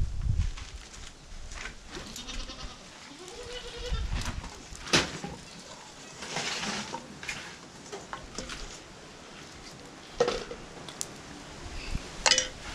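A farm animal calling a few times in the background, short wavering cries. There are sharp knocks about five seconds in and again near the end.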